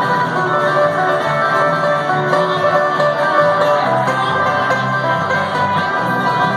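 Bluegrass band playing live: banjo, acoustic guitars and electric bass.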